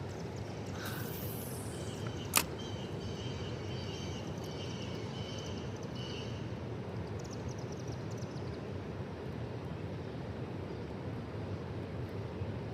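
Steady outdoor rushing noise of a river setting, with one sharp click about two and a half seconds in and faint high chirps for a few seconds after it.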